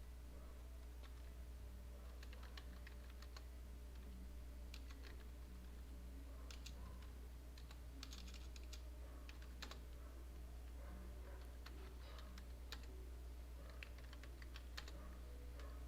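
Faint typing on a computer keyboard: irregular keystrokes in quick bunches with short pauses between them, over a steady low hum.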